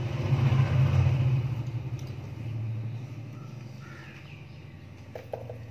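A motor vehicle's engine passing: a low rumble that swells to its loudest about a second in, then fades away over the next few seconds.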